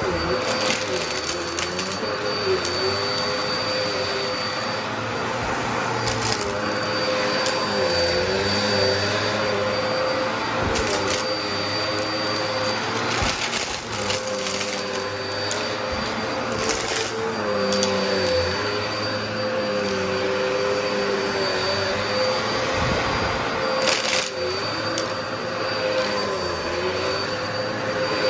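Eureka upright bagless vacuum cleaner running steadily on a rug, with a constant motor whine and a lower tone that wavers every couple of seconds as it is pushed back and forth. A few sharp clicks break through as small aquarium gravel is sucked up into the bin.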